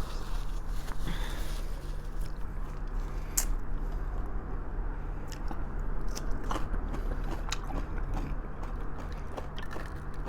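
A person chewing and biting food close to the microphone, with scattered wet smacks and clicks, while eating braised pork trotters (humba). A steady low hum runs underneath.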